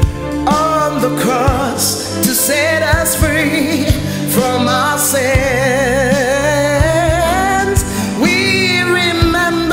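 A woman singing a gospel song with a strong vibrato, over instrumental accompaniment with steady low notes and an even drum beat.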